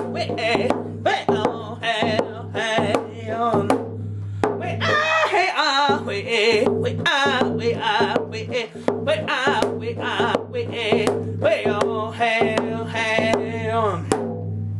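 Round dance song: a man sings wordless vocables in a high, wavering voice, with long held notes, while beating a frame hand drum with a padded stick in a steady beat.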